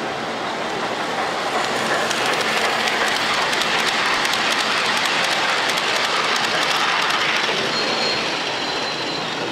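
G scale model freight train rolling past close by: wheels clicking over the rail joints, the sound swelling as the locomotive and cars go by and easing off near the end, with a faint thin high tone in the last second or so.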